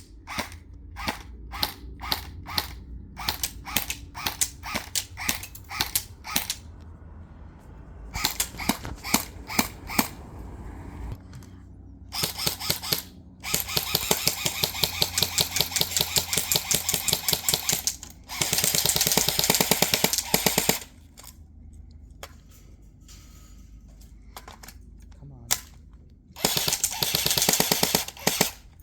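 Battery-powered airsoft rifle firing: a run of single shots at about two a second, a quicker string, then several long full-auto bursts of rapid clicking, the longest lasting about four seconds.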